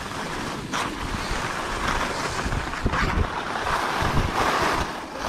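Skis sliding and scraping over packed snow in swelling rushes, with wind buffeting the action camera's microphone.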